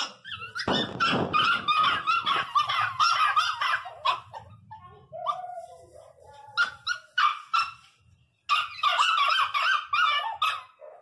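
Pinscher dogs crying and yelping in rapid high-pitched runs, several cries a second with short breaks, in excited greeting of their returning owner. A burst of rustling noise comes about a second in.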